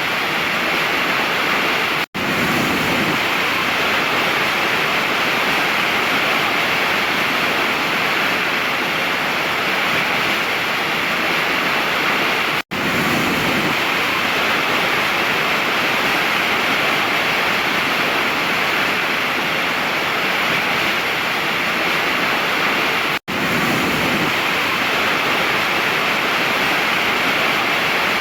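Waterfall rushing in a steady, even roar of falling water. It cuts out for an instant three times, about ten seconds apart, at the seams of a looped recording.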